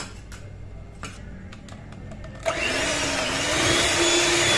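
Bajaj electric hand mixer switched on about halfway through, its motor whirring steadily as the beaters whip cream and mango pulp in a steel bowl. Before it starts there are a few light knocks and clicks.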